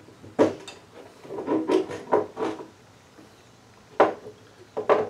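Glass mason jars knocking on a tabletop as they are handled and set down, with peach pieces dropped into them: a few sharp knocks, a cluster in the middle and two close together near the end.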